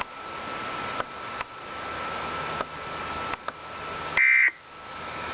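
Receiver static hiss with a faint steady tone and a small click about once a second, then, about four seconds in, a short loud burst of buzzy data tones: the first of the Emergency Alert System's end-of-message bursts that close the alert.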